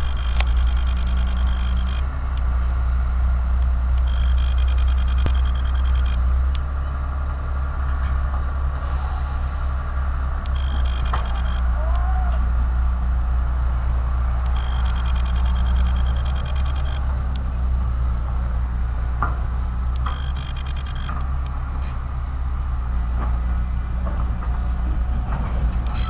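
Heavy diesel machinery running steadily: a Cat 318C excavator and a truck, heard from a distance as a deep engine rumble. A high-pitched squeal comes and goes every few seconds.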